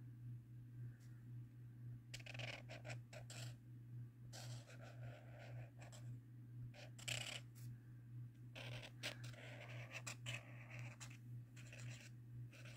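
Marker nib scratching across sketchbook paper in short strokes, a second or so at a time with pauses between, over a faint steady low hum.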